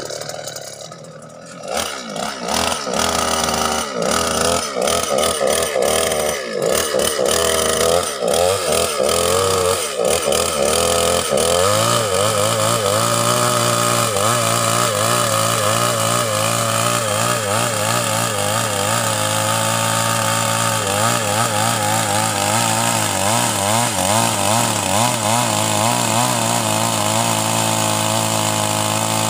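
Petrol chainsaw's two-stroke engine running: after a brief dip about a second in, it revs up and down unevenly for several seconds, then holds a high steady speed. Near the end its pitch wavers as the chain cuts into a timber log.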